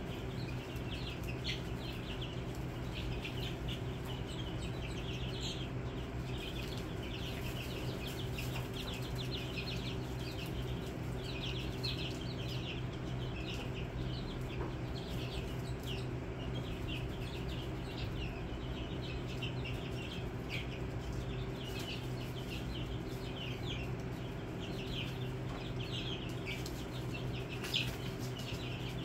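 A brood of young chicks peeping without pause, many short high chirps overlapping, over a steady low hum.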